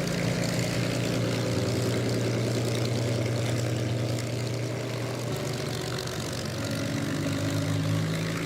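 P-40 Warhawk's piston engine and propeller running with a steady drone, its pitch shifting slightly a couple of times.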